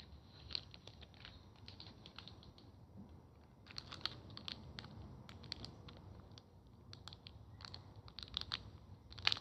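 Scattered small clicks and crinkles of scissors working at a plastic package, in irregular clusters rather than a steady rhythm.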